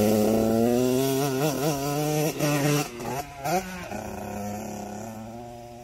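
Kawasaki KX65 two-stroke dirt bike engine revving as it rides away, its pitch rising and falling with the throttle and the sound fading as it gets farther off.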